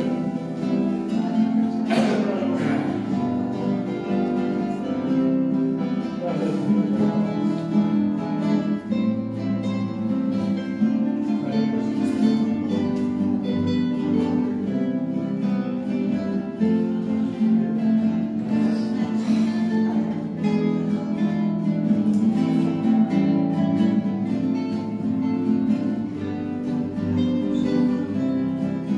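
Music with guitar playing, plucked and strummed.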